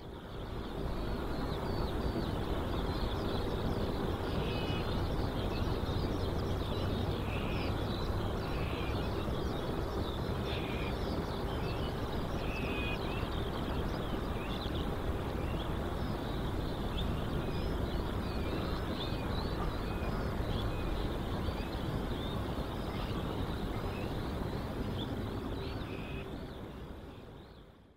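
Outdoor ambience: many small birds chirping over a steady low background noise, fading in at the start and out near the end.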